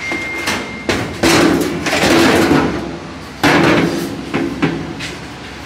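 Steel sheet-metal panel clanging and rattling against the car body as it is wrestled into place, in several loud bangs that each carry on briefly.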